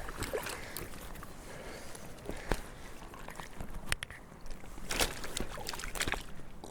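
Water sloshing and splashing around a float tube, with scattered sharp splashes and knocks.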